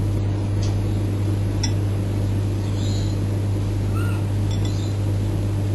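A steady low hum, with a few faint clicks and two short, faint chirps near the middle.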